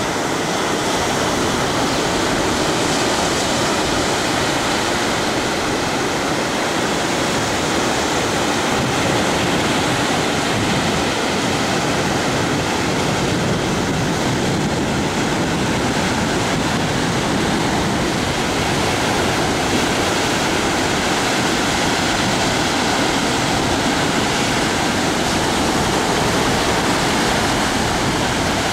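Ocean surf: rows of small waves breaking and washing up a sandy beach, heard as a steady rushing wash with no single break standing out.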